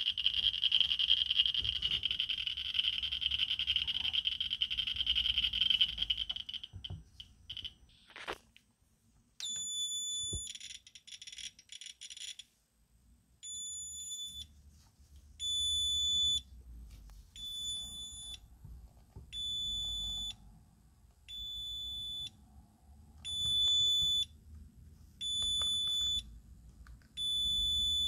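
Victoreen 290 survey meter's audio clicking so fast on pitchblende uranium ore that the counts merge into a continuous crackling hiss, which cuts off about six seconds in. Then a Rotem RAM Gene-1 dosimeter sounds its high-pitched radiation alarm: one tone held for about three seconds, then short beeps about every one and a half seconds, set off by the ore's high dose rate.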